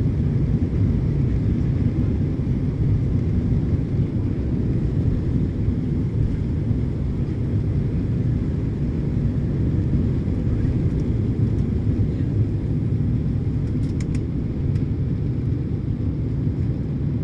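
Steady low rumble inside the cabin of an Embraer 175 jet, its two turbofan engines at takeoff thrust during the takeoff roll, with the aircraft lifting off near the end.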